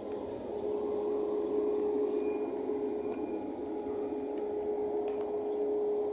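Distant jet engines of a GOL Boeing 737 moving along the runway: a steady hum with a constant tone running through it, growing slightly louder about a second in.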